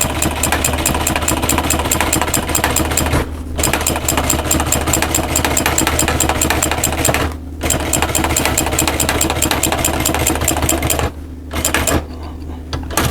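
Sewing machine running fast, stitching a line through seat upholstery with a rapid, even clatter over a motor hum. It pauses briefly twice and stops about eleven seconds in.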